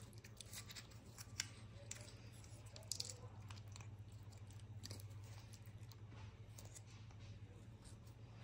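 A cat licking a lickable treat from a squeeze tube: faint, irregular wet clicks and smacks of its tongue and mouth.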